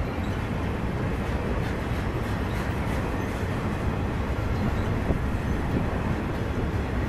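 A loaded welded-rail freight train's flatcars rolling past at close range. The steel wheels on the track make a steady rumble with a few faint clicks.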